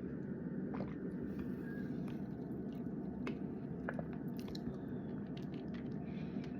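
Steady low background hum with a few faint scattered clicks; no burp.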